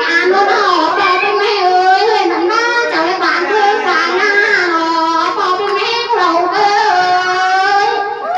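A woman singing unaccompanied in a high voice, with long held notes that waver in pitch, up close.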